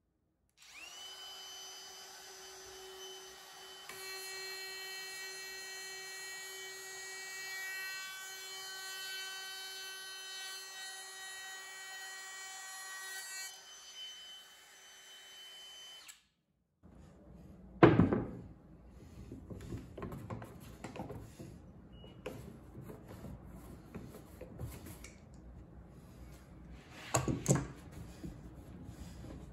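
DeWalt cordless router with a 1/2-inch straight bit spinning up to a steady high whine and cutting a dado across a 2x4, running for about fifteen seconds before it cuts off. Afterwards, knocking and handling sounds, with two loud thumps.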